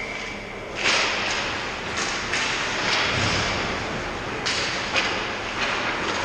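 Ice hockey skate blades scraping on the ice and sticks knocking the puck: a run of sharp scrapes and clacks over steady rink noise.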